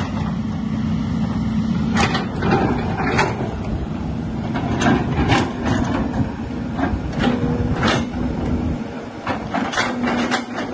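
Hitachi Zaxis hydraulic excavator's diesel engine running under load, with its steel bucket scraping and clanking against rock and gravel: irregular sharp knocks and rattles every second or so. The engine rumble drops back about nine seconds in.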